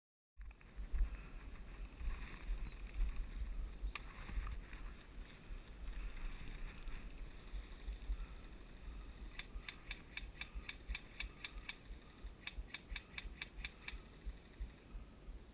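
Airsoft gun firing two rapid bursts of sharp, evenly spaced shots, about seven a second, a few seconds before the end, over a steady low rumble of wind or handling noise on the microphone.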